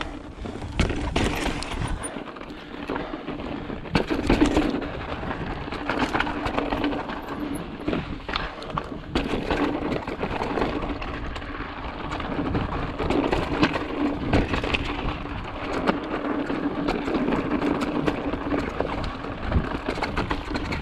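Mountain bike being ridden over rock: the tyres rumble and the bike rattles, with many small knocks and clicks, and a steady hum comes and goes.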